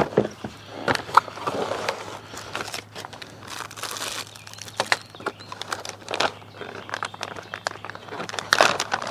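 A cardboard shipping box being opened by hand, then plastic bags of parts and clear tubing crinkling and rustling as they are handled, with scattered knocks and taps.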